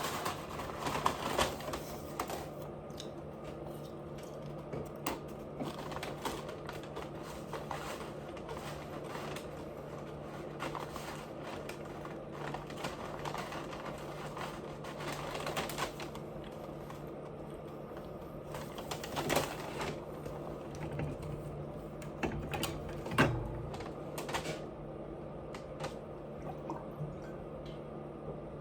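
Close-miked eating sounds: scattered clicks and crackles of chewing and mouth noises over a steady low hum, with one sharper click about 23 seconds in.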